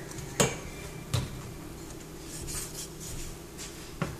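Cookware being handled at a stovetop pot: three sharp knocks of utensils against the pot, two in the first second or so and one near the end, over a steady low hum.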